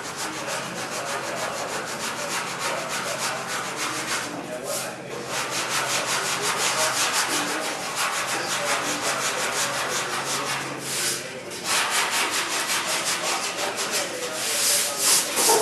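Hand sanding a car body panel with 80-grit sandpaper: quick, even back-and-forth scratching strokes with two short pauses.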